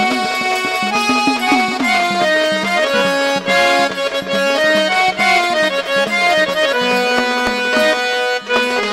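Instrumental interlude of Indian devotional folk music: a harmonium plays a melody in held notes that step from pitch to pitch, over hand-drum accompaniment.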